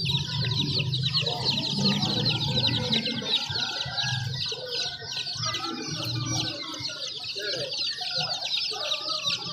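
A crowd of baby chicks peeping nonstop, many high, short cheeps overlapping into a continuous chatter.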